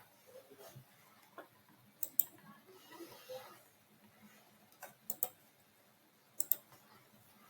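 Computer mouse clicking: three quick double clicks, each a press and release, about two, five and six and a half seconds in.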